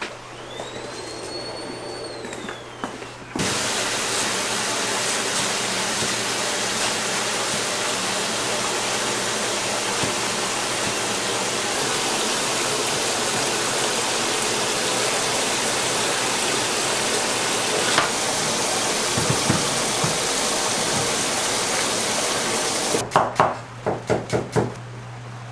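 A steady, loud rushing hiss starts abruptly about three seconds in and holds for about twenty seconds over a low, constant hum. Before it a faint high whistle rises and falls, and after it stops there is a quick run of sharp clicks and knocks.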